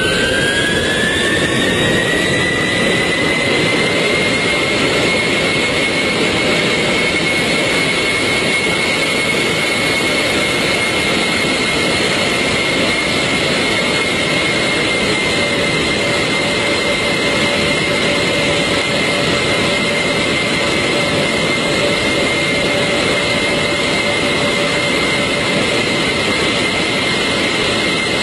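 Airliner's jet engines spooling up: a whine rises in pitch over the first few seconds, then holds steady over a loud, even roar at high thrust.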